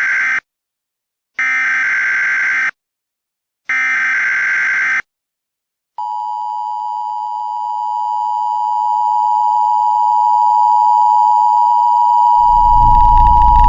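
Emergency Alert System broadcast signal: the tail of one data burst and two more identical bursts, about a second apart, then after a short silence the steady two-tone attention signal, which slowly grows louder. Near the end a low rumbling noise joins beneath the tone.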